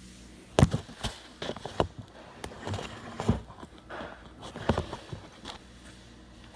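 A run of irregular sharp knocks, taps and clicks, the loudest about half a second in, over a faint steady low hum. They die away about five seconds in.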